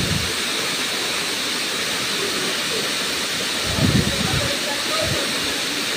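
Steady rushing hiss of a tall waterfall pouring into a plunge pool, with brief low rumbles near the start and again about four seconds in.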